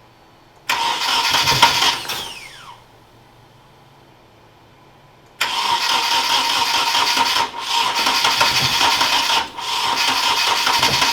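Nissan KA24DE 2.4-litre four-cylinder engine being cranked over on the starter in two tries: a short burst about a second in, then a longer spell from about five seconds in with two brief dips.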